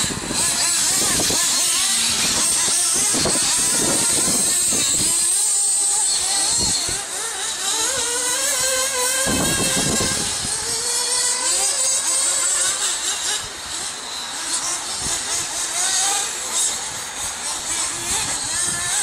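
Radio-controlled off-road buggy's motor running around a track, its high whine rising and falling as the throttle is worked.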